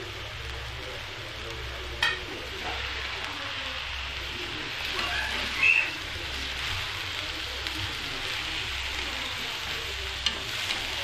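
Rice and sugar sizzling in hot oil in a steel kadai, stirred with a spatula that knocks and scrapes against the pan a few times, the loudest scrape about halfway through.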